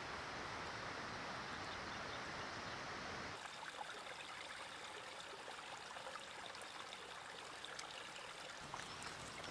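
Running water of a stream, a steady rushing. About three seconds in it changes abruptly to a quieter, thinner flow with a few faint light ticks.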